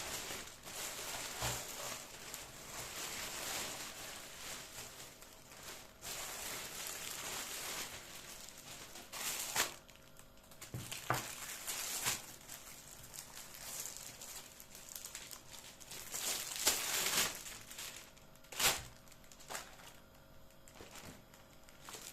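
Rustling and crinkling, as of plastic or paper being handled, in long stretches during the first several seconds, then lighter rustling broken by a handful of sharp knocks.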